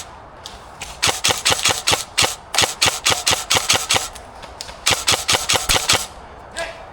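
Airsoft rifle firing rapid strings of sharp shots, about six a second, with a short pause between about four and five seconds in.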